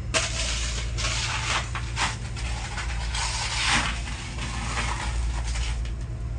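Crushed ice being scooped and scattered over fish in a boat's fish hold: gritty scraping and rattling in several bursts, the longest about three seconds in. Under it runs the steady low hum of the fishing boat's engine.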